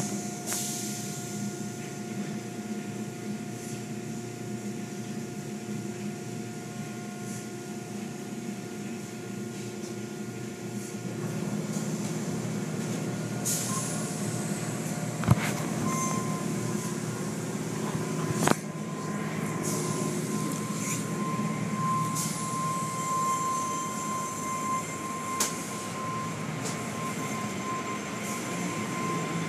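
Automatic car wash heard from inside the car: steady machinery running with water spraying and cloth strips and brushes sweeping over the body, with a few sharp knocks. A steady high whine comes in about halfway through.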